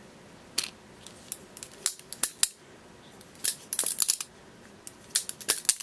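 Balisong (butterfly knife) being flipped by hand: irregular metallic clicks and clacks of the handles swinging around the blade, coming in small scattered clusters.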